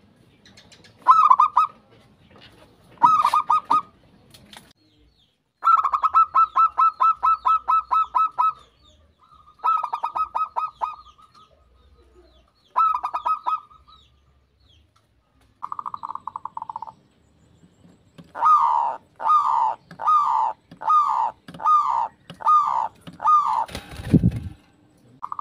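Zebra doves (perkutut) cooing in rapid rolling trills, repeated in short bursts with one long trill a few seconds in. Near the end comes a run of eight short staccato notes, then a single low thump.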